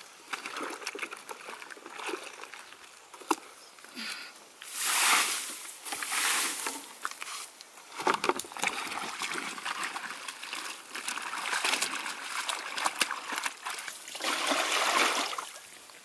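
Water trickling, splashing and sloshing as laundry is washed and wrung out by hand in plastic basins, with two louder swells of splashing, about five seconds in and near the end.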